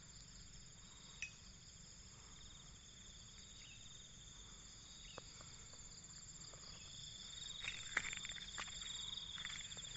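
Faint, steady, high-pitched insect chorus, several buzzing tones held throughout. A few soft clicks sound over it, more of them in the last couple of seconds.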